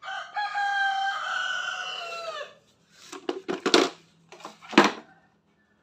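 A rooster crowing once: one long call of about two and a half seconds that drops in pitch at the end. Then a few knocks of hard plastic power tools and a battery charger being shifted on a tiled floor.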